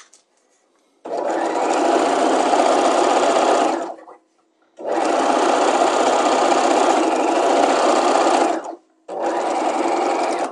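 Electric sewing machine stitching a straight seam in three runs of a few seconds each, with brief stops between them, sewing a line of stay stitching along a muslin skirt's waistline.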